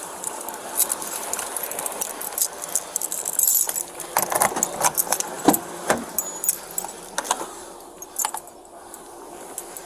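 Metallic jangling and rattling with many sharp clicks, from a police officer's duty gear moving close to a body-worn camera; the clicking is thickest in the middle and thins out near the end.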